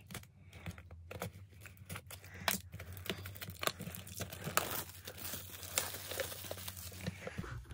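Clear plastic shrink wrap being slit with a utility knife and peeled off an album box by hand: a run of irregular crinkles and tearing crackles.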